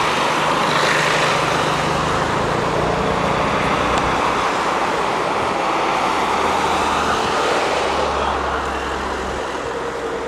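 Race-convoy vehicles (team cars and an ambulance) driving past close by: a steady mix of engine and tyre noise that eases a little near the end.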